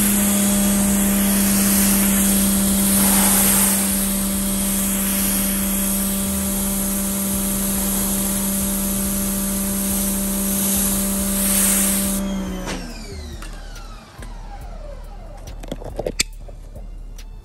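Giraffe Tools Grandfalls 2200 PSI electric pressure washer running with a steady motor hum while its water jet hisses onto a car's hood. About twelve seconds in the spray stops and the motor winds down, falling in pitch. A short click near the end.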